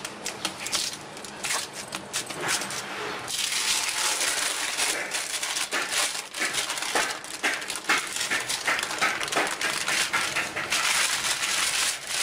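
Butter paper crinkling and rustling under hands as cashew dough is pressed and wrapped in it. It starts as scattered light crackles and becomes a louder, more continuous rustle about three seconds in.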